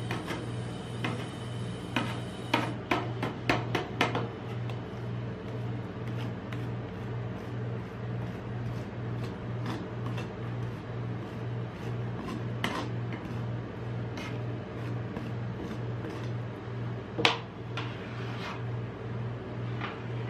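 Metal spatulas tapping and scraping on the steel freezing plate of a rolled ice cream griddle as blackberry ice cream is spread and scored into strips. There is a quick run of taps a few seconds in, then scattered single knocks, the loudest near the end. A steady, pulsing low hum runs underneath.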